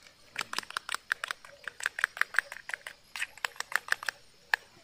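An egg being beaten in a small steel cup: a utensil clinking quickly and unevenly against the metal, several strokes a second for about three and a half seconds, then one last clink near the end.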